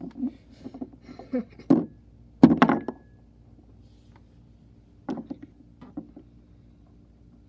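Irregular knocks, taps and bumps from hand-handling plastic toy figures on a wooden surface. The loudest thump comes about two and a half seconds in, and a few softer taps follow around five to six seconds.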